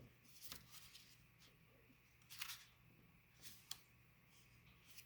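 Near silence, broken by a few faint, short rustles and clicks of paper being handled: pages of a guidebook being leafed through to look up a card.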